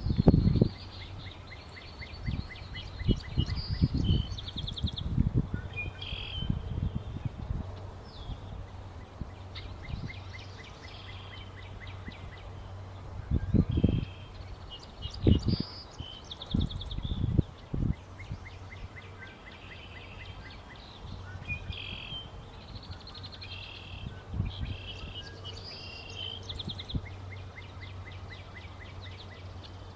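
Several songbirds singing and calling at a wetland pond, with repeated trills and chirps, over a steady low hum. Irregular low rumbling thumps come and go and are the loudest sounds, in clusters near the start, in the middle and again later.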